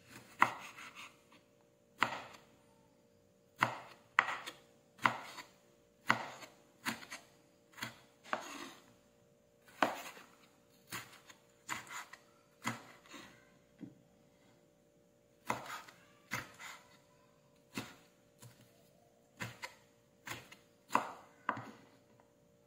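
Kitchen knife slicing tomatoes on a wooden cutting board: sharp knocks of the blade meeting the board, irregular, about one a second, with a few short pauses.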